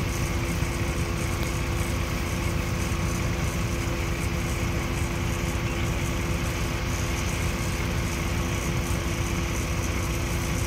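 Diesel engine running steadily, a constant low rumble with a droning hum.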